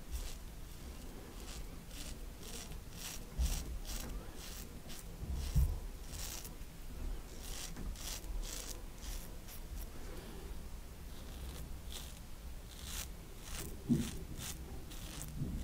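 Double-edge safety razor (TATARA Masamune) cutting stubble on lathered skin: a series of short rasping strokes, with a few dull bumps that are the loudest moments.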